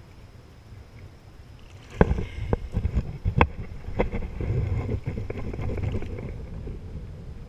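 Water lapping at a kayak on choppy water, then from about two seconds in a run of sharp knocks and splashes as a hand and fishing rod bump against the kayak and stir the water alongside.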